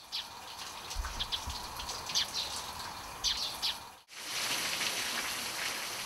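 Birds chirping in short, high calls over an outdoor ambience, then after a brief cut about four seconds in, steady rain falling.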